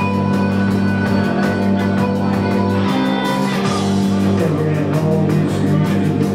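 A live rock band playing: electric guitar and drum kit with a quick, even cymbal pulse over held low notes that change a few times.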